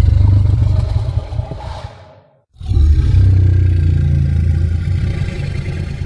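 Two deep, drawn-out calls of a Camarasaurus sound effect, an imagined sauropod voice. The first fades out about two seconds in, and the second begins soon after and slowly fades toward the end.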